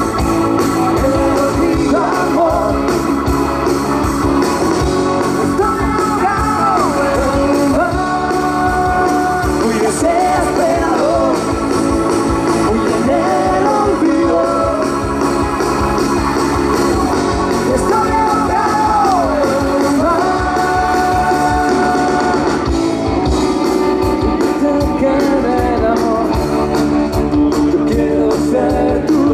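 Live band playing an amplified rock song, with guitar and a lead melody of sliding, held notes over a steady backing.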